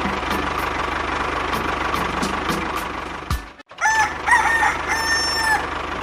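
A rooster crowing once, about four seconds in, a long call that bends in pitch for under two seconds. Before it comes a steady mechanical hum with an even low pulse that cuts off just before the crow.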